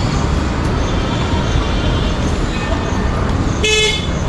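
Busy street ambience of traffic and distant voices, with one short vehicle horn blast near the end.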